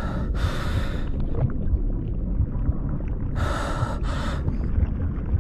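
Deep, steady rumbling drone with two pairs of loud, breath-like gasps about three and a half seconds apart: an audio-drama sound effect of heavy breathing over a low rumble.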